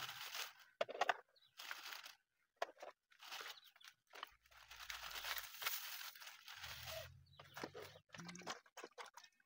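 Thin plastic carrier bag rustling and crinkling in short patches as eggs are taken out of it, with a few light knocks as eggs are set down in an aluminium pot.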